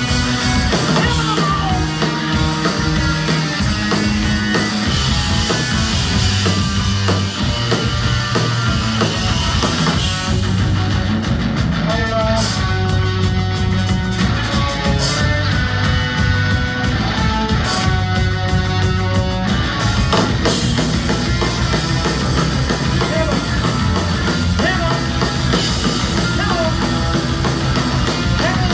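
Live rock band playing loud with electric guitar, bass guitar and drum kit.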